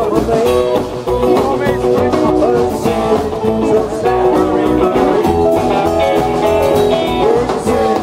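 Live rock and roll band playing: electric guitar over a steady beat from a plucked upright double bass.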